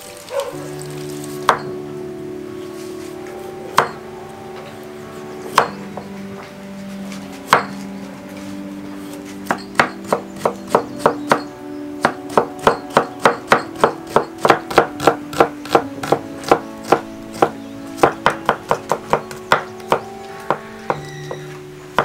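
Kitchen knife chopping carrot on a wooden cutting board: four single strokes a couple of seconds apart, then from about halfway a quick, even run of strokes, about three a second, as the carrot is cut into matchsticks.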